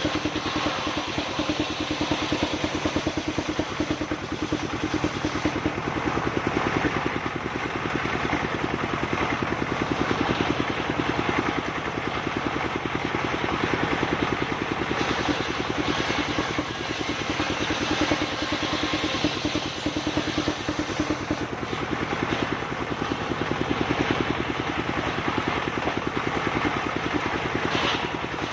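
Engine-driven sawmill machine running steadily, its engine beating with a fast even pulse under a steady hum.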